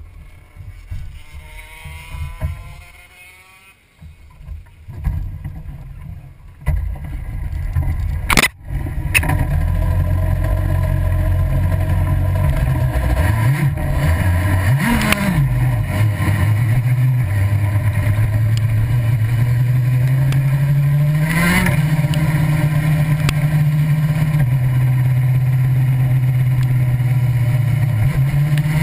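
Vehicle engine running hard and steady, heard onboard, with its pitch dipping and climbing back twice as the throttle is eased and reopened. Before that it is quieter and uneven, with a sharp knock just as it grows loud.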